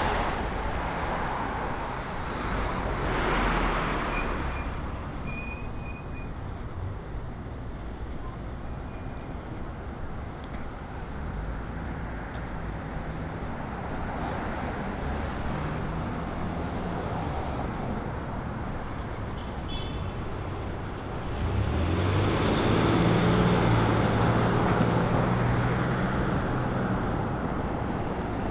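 City street traffic: a steady wash of road noise from cars, with a louder vehicle passing about three-quarters of the way through.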